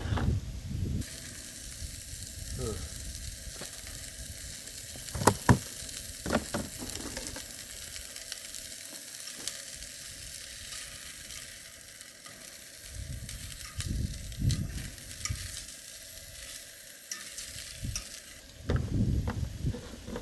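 Sausages sizzling steadily in a frying pan on a Coleman dual-fuel camp stove. A few sharp knocks of pan or utensils come about five seconds in, and low gusts of wind buffet the microphone now and then.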